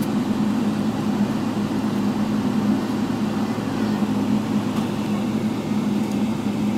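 Steady cabin drone of a Boeing 777-300ER taxiing after landing: its GE90 engines at idle and the cabin air, an even noise with a constant low hum.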